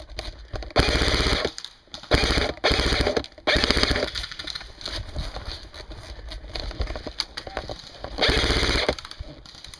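Airsoft electric gun, a customized JG SD6 (MP5SD6-style AEG), firing five short full-auto bursts of rapid shots, four close together in the first half and one more near the end.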